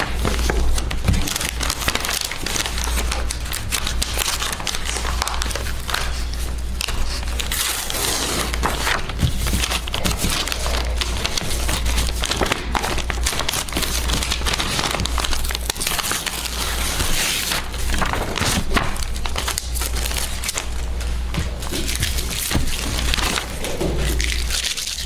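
Paper rustling and crinkling as card folders and loose sheets are handled and leafed through close to a microphone, with a steady low hum underneath.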